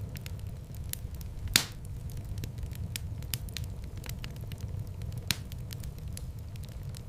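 Wood fire in a fireplace crackling over a steady low rumble, with many small snaps and two louder pops, about a second and a half in and again near five seconds.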